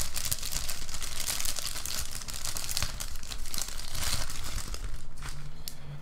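Metallic anti-static shielding bag crinkling and crackling as it is pulled open by hand and a PCIe card is slid out of it, with many sharp crackles.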